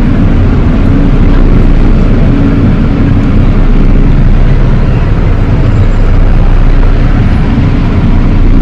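Coach engine and cabin noise heard from inside the bus: a loud, steady low rumble with a faint hum.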